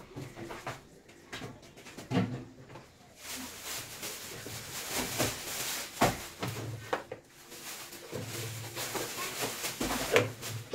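Handling noise at a steel worktop: a series of sharp knocks and clicks, with a stretch of rustling from plastic piping bags being handled in the middle.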